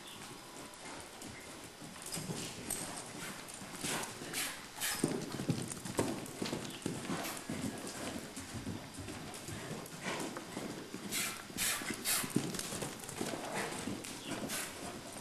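Hoofbeats of a Morgan stallion cantering on a lunge line over soft arena dirt: an irregular run of dull thuds, with a few sharper, louder strikes scattered through.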